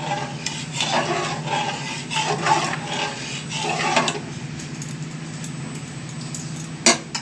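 A cooking utensil stirring and scraping through rice and dal in a pot, in repeated strokes over the first four seconds, then a single sharp knock near the end.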